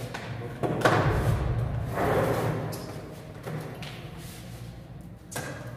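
Dull thumps and knocking about one second in and again about two seconds in, as a plastic crate is set down on a tiled floor and a man sits down on it, over a steady low hum.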